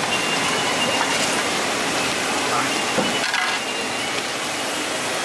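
Steady hissing background noise of a busy street-food stall, with a few light clicks and knocks, the clearest about three seconds in.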